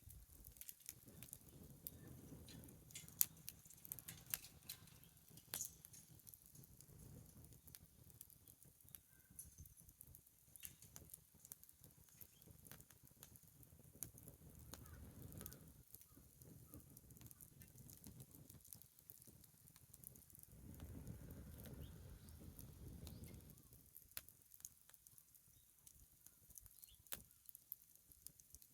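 Wood bonfire crackling faintly, with scattered small pops and snaps and a low rumble that swells and fades three times.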